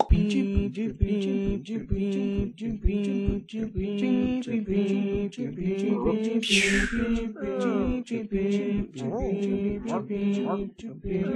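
Soundtrack music: a held low drone with a quick, regular clicking beat, a falling swoosh about six and a half seconds in, then sliding, wavering notes.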